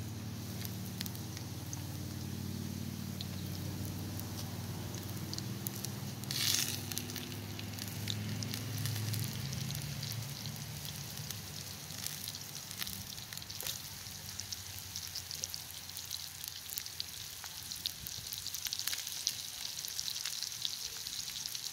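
Onion rings and flour-dredged groundhog pieces frying in hot fat in a cast-iron skillet over a wood fire: a steady sizzle with many small crackles. The sizzle grows louder near the end as more pieces are laid in.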